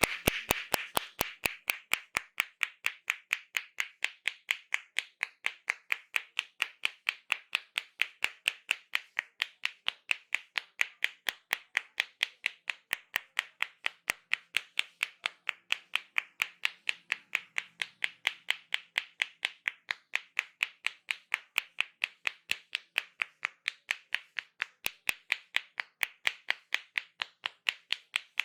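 Rapid, even hand slaps of a head massage, about four a second, steady without a break.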